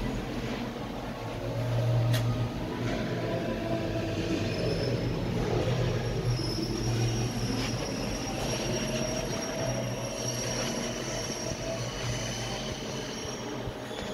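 Electric arc welding running steadily: a continuous hiss with a faint high-pitched whine over a low hum.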